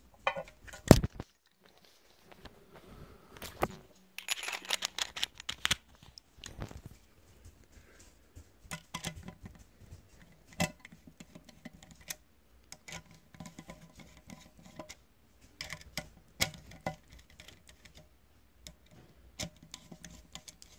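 Irregular small clicks and taps of a screwdriver working the spring-loaded screws of a laptop CPU heatsink, starting them into the motherboard, with a louder knock about a second in and a quick run of clicks around the fourth to sixth second.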